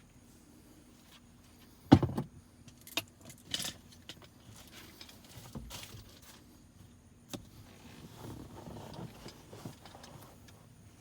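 Clicks, knocks and metallic clinks of small parts and tools being handled while a center console latch handle is fitted back in, with the sharpest knock about two seconds in and softer rustling and clatter near the end.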